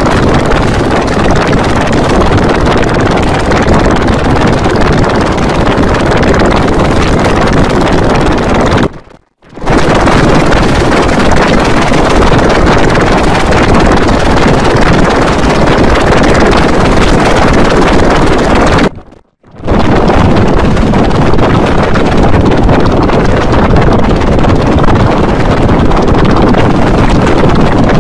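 Loud, harsh noise with no clear tune or pitch, spread evenly from deep to high. It comes in three stretches of about nine seconds each, with a brief silence after the first and after the second.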